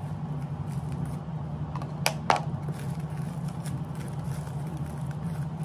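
Scissors snipping a plastic package open: two sharp clicks close together about two seconds in, with light rustling of the plastic wrapper. A steady low hum runs underneath.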